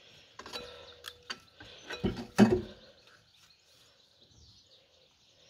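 Clinks and knocks of metal engine parts and tools being handled, one of them ringing briefly, with a heavier clunk about two seconds in.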